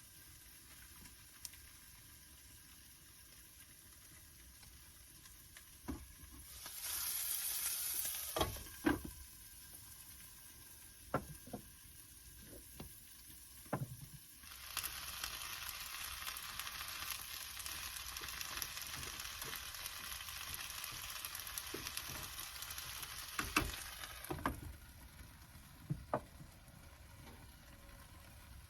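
Onions and carrots sautéing in a pan: sizzling that swells briefly, then stays louder for about ten seconds in the middle. There are scattered clicks and knocks of a utensil against the pan.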